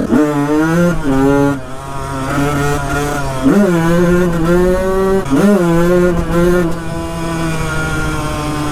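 1993 Honda CR125's single-cylinder two-stroke engine under way, revving hard with several quick rises and falls in pitch, then holding a steadier, slightly quieter pitch in the last couple of seconds.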